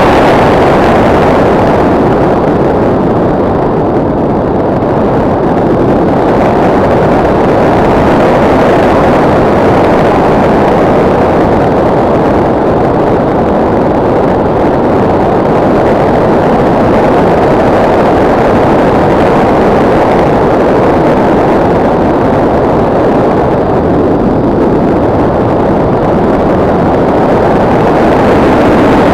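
Loud, steady rushing of airflow over the onboard camera's microphone on an RC motor glider in flight; the upper hiss thins out twice for a few seconds as the plane turns.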